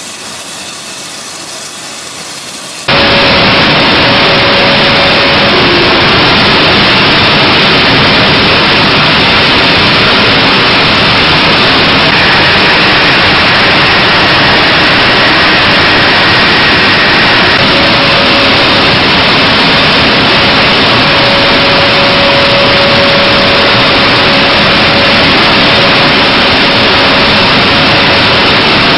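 A-10 Thunderbolt II's twin TF34 turbofan engines running on the ground: a loud, steady jet rush with a faint whine in it, which comes in abruptly about three seconds in after a quieter hiss.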